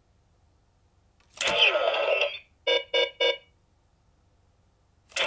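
Electronic sound effects from the CSM Decadriver toy transformation belt. A sharp click about a second in is followed by a falling electronic sound, then three quick beeps. Another click and electronic sound start just before the end.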